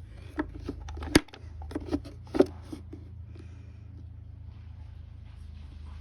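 A quick run of clicks and knocks, the sharpest about a second in, then a low steady rumble.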